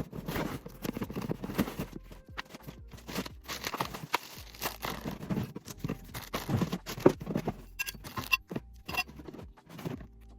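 Cardboard box of a Henry vacuum cleaner being opened and its parts pulled out: irregular crunching, scraping and tearing of packaging, with short knocks.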